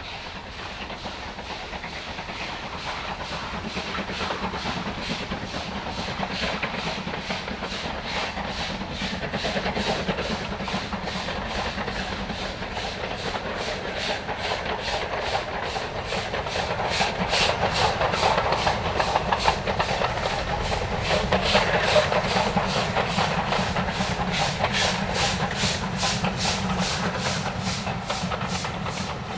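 Steam locomotive working along the line: a quick, even beat of exhaust chuffs over steam hiss, growing louder to a peak about two-thirds of the way through and then easing slightly.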